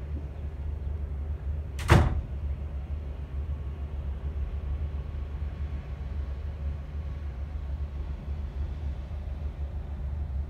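Steady low rumble of the cruise boat's engine, with a single sharp bang about two seconds in.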